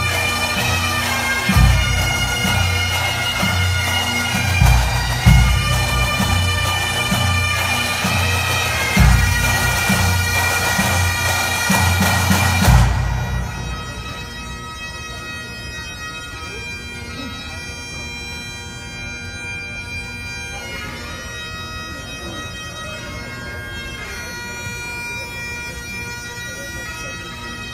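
Bagpipes playing, with a few heavy low thumps in the first half. About halfway through the sound drops and the pipes carry on more softly.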